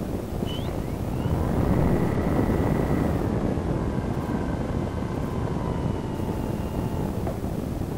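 Steady rush of airflow on the microphone as a Multiplex Cularis RC glider flies, briefly louder a second or two in. A faint whine slowly falls in pitch underneath.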